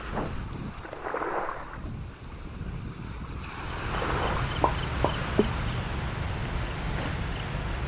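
Waves washing on the shore with wind buffeting the microphone, a low steady rumble with swells of surf. Three short sharp taps come in quick succession a little past halfway.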